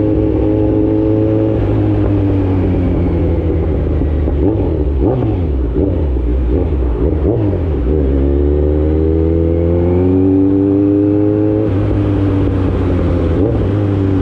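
Kawasaki Z900 inline-four motorcycle with an Austin Racing full exhaust, running under the rider. The engine holds steady at first and its note wavers in the middle. It then climbs steadily for about three seconds under acceleration and falls back near the end.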